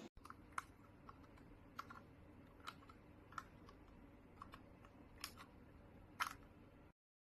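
Faint, irregular small clicks and taps, about a dozen over several seconds, from hands working on the espresso machine's parts, over a low steady hum; the sound cuts off abruptly near the end.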